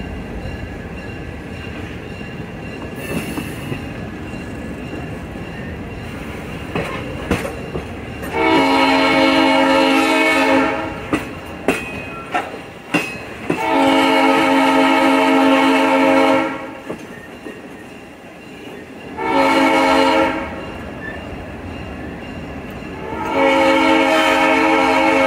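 EMD GP9 diesel locomotive's air horn sounding the grade-crossing signal: two long blasts, a short one, then another long one. Between the blasts there is the steady rumble of the moving passenger train and a few sharp clicks of its wheels.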